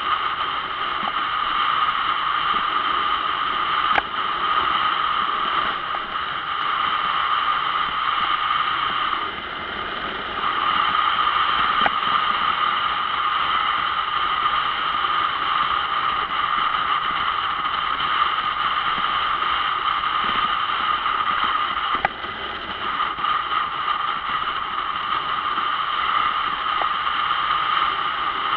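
Steady wind rush and road noise on the microphone of a camera mounted on a moving motorcycle, with a few sharp knocks.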